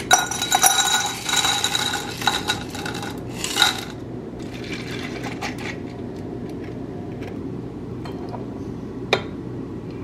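Nugget ice clattering and clinking into a glass Weck jar for about four seconds, then a shorter, softer pour of liquid over the ice. A single sharp clink comes near the end, over a steady low hum.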